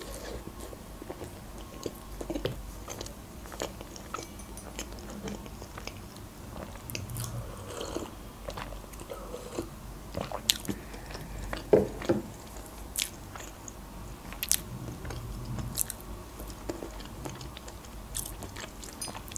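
Close-miked biting and chewing of a cream-filled choux eclair: soft wet mouth sounds and scattered small clicks, a few louder than the rest.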